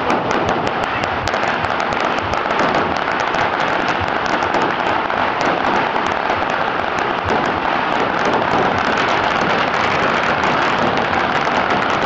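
A pagara, a long Surinamese string of red firecrackers, going off in a dense, unbroken crackle of rapid small bangs at a steady level.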